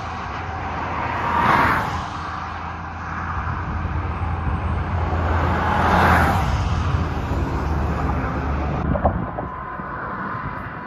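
Road traffic: two vehicles pass close by, one about a second and a half in and another about six seconds in, over a steady low rumble.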